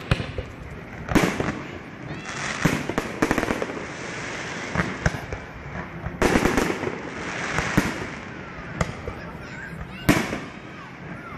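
Fireworks display: aerial shells bursting with sharp bangs about a second in, around three seconds, around six seconds and near the end, with continuous crackling between them.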